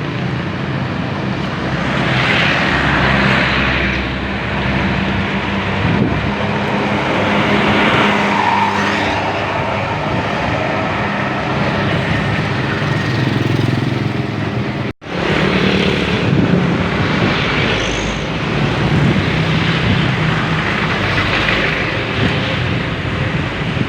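Heavy road-vehicle noise: bus engines droning steadily under a wash of traffic and road noise, with no horn tune standing out. The sound drops out completely for a moment about fifteen seconds in.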